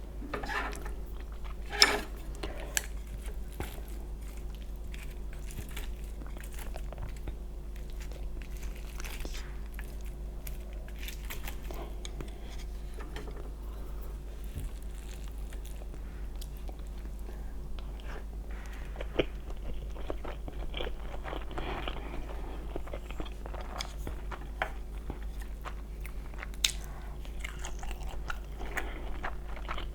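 A person eating close to the microphone: chewing and biting with occasional crunches, and a few sharp clicks, the loudest about two seconds in. A steady low hum lies underneath.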